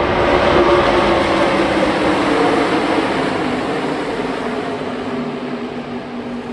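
A field of NASCAR race cars running together in a pack, their engines a loud, steady drone of many overlapping tones that slowly fades as the pack moves away.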